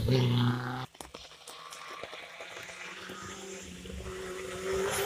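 Rally car engine at high revs passing close, cut off suddenly about a second in; then the faint, steady sound of a distant rally car engine, growing louder near the end as it approaches.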